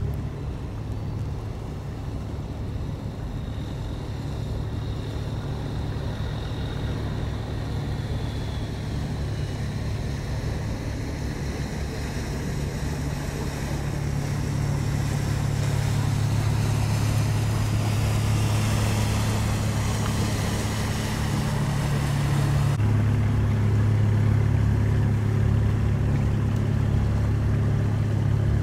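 A boat engine droning steadily, a low hum that grows louder in the middle, over a rushing hiss. The hiss cuts off abruptly about three quarters of the way through.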